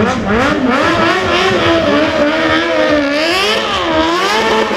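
Sport motorcycle engine revving hard during a rear-tyre burnout, its pitch swinging up and down again and again as the throttle is worked.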